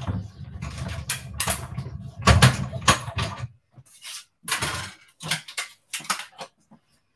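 Hand-cranked die-cutting machine rolling a die and plates through with a low rumble and clicks for about three and a half seconds, then a series of short clicks and knocks as the plates and die are handled.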